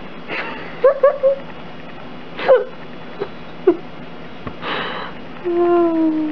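Shiba Inu vocalising: a run of short yelps and whimpers, a breathy exhale, then one long whine that falls slightly in pitch near the end.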